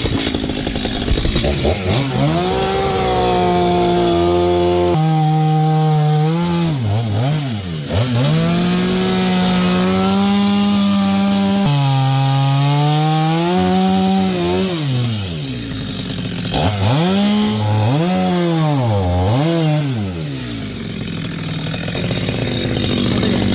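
Two-stroke chainsaw running at high revs, cutting into wood; the engine note drops and climbs back several times as the throttle is eased and opened again.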